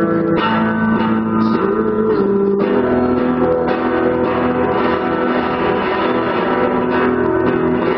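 Electric guitar played flat across the lap, lap-steel style, through an amplifier: held, ringing notes and chords, with one note gliding in pitch about two seconds in.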